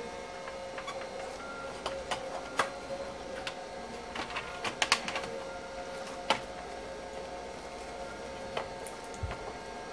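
Scattered clicks and taps of small parts being handled and fitted, most dense about four to five seconds in, over a steady faint electrical hum.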